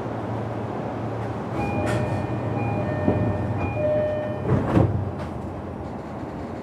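Door-closing chime of a JR East E233-series electric train sounding three times over the steady hum of the standing car, then the doors sliding shut with a thump near the end of the chime.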